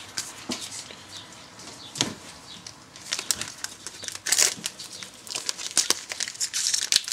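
Foil trading-card booster packs and cards being handled by hand: crinkling wrappers and light card clicks, getting busier and louder from about three seconds in.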